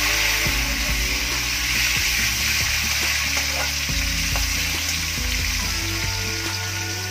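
Whole spices and bay leaves sizzling steadily in hot oil in an aluminium kadai. A flat spatula stirs them, with a few light scrapes and clicks against the pan.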